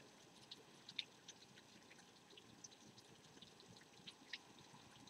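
Light rain heard faintly: scattered, irregular ticks of falling drops over a soft hiss, the clearest tick about a second in.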